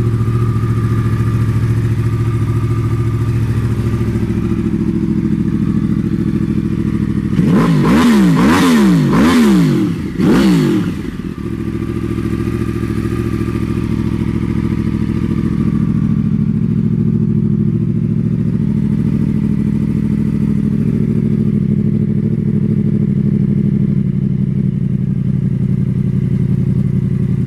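2014 Yamaha R1's crossplane inline-four idling through a Danmoto aftermarket dual exhaust. About a third of the way in it is revved several times in quick succession, each rev rising and falling, then it settles back to a steady idle.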